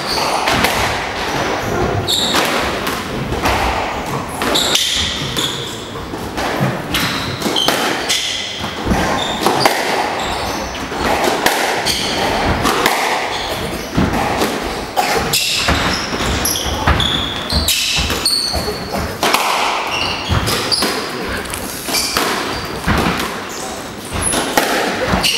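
Squash rally: the ball smacks again and again off rackets and the court walls, with short high squeaks of shoes on the wooden floor between the hits.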